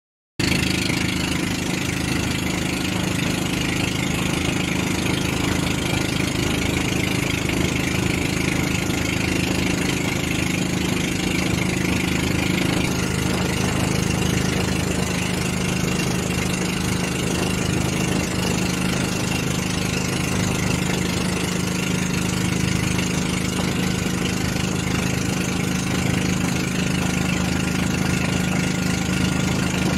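Engine of a wooden outrigger pump boat (bangka) running steadily while underway, with a slight change in its tone a little under halfway through.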